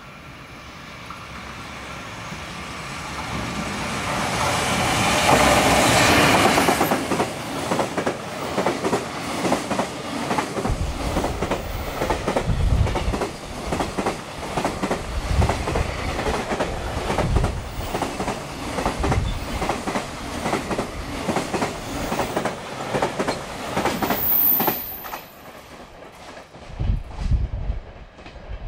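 A JR Freight EF210 electric locomotive and its freight train passing through a station at high speed. The sound builds up as it approaches and is loudest as the locomotive goes by about five seconds in. Then the wagon wheels clack over the rail joints in a steady rhythm, and the last wheels cross the joint near the end.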